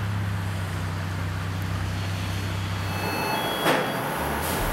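A low steady drone that shifts pitch in a couple of steps, with one short loud swish about three and a half seconds in.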